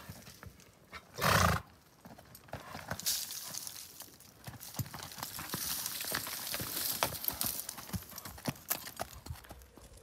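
Ridden quarter horse stepping down a steep dirt and rock slope: irregular hoof steps and knocks, with dry brush rustling and scraping against horse and rider through much of the descent. About a second in, one short, loud sound from the horse.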